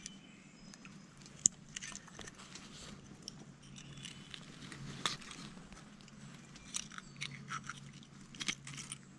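Fishing pliers clicking and scraping on a hook in a largemouth bass's mouth as it is unhooked: scattered small sharp clicks and crackles, with one louder click about a second and a half in.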